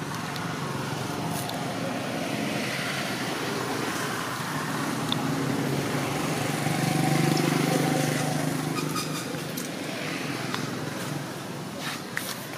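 A motor vehicle engine passing by, its hum swelling to a peak about halfway through and then fading away.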